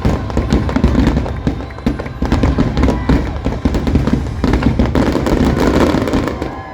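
A dense, rapid barrage of firework bangs and crackles with a deep rumble under them, dying away near the end.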